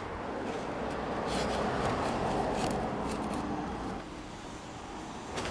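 Soft scraping and rustling of gloved hands working a wooden shim in under the bottom of a wooden roof-window frame, with a few light clicks and a sharper knock near the end.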